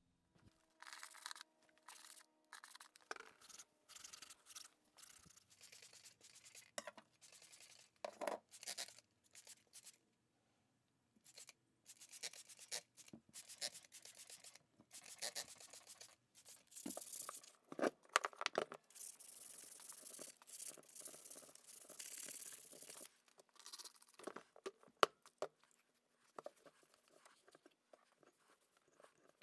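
Hands cleaning the rotor of an old 5 HP AJAX electric motor with spray cleaner: irregular scrubbing, rubbing and spraying noises, with a few seconds of continuous hiss a little past the middle and a couple of sharp clicks later on.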